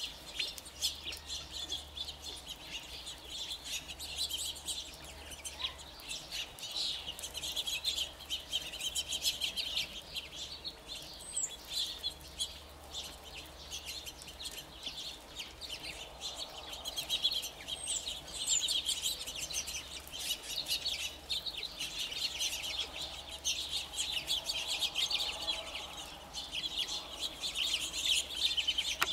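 A feeding flock of California quail and small songbirds chattering: a steady stream of quick chirps and twitters with soft clucking calls mixed in, and two sharp high chip notes, one about a third of the way in and one a little past the middle.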